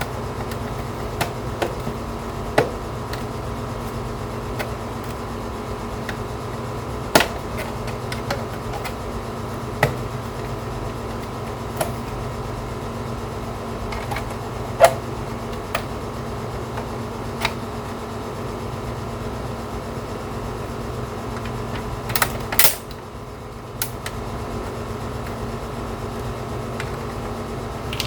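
Scattered sharp clicks and knocks from a PC DVD drive's plastic front case being pried and forced by hand, over a steady hum. The case won't come free because the disc tray is shut.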